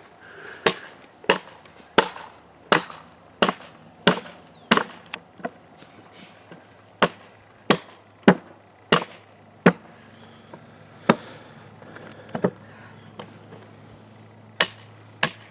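Repeated chopping strikes of a hand tool into wood, about one and a half blows a second, breaking off briefly about five seconds in and thinning out to a few spaced blows near the end.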